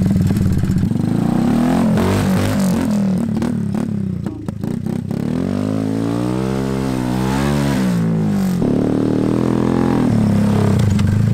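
Old Honda three-wheeler's engine running as it is ridden over dirt. It revs up and back down in one long swell in the middle, then settles to a steady drone.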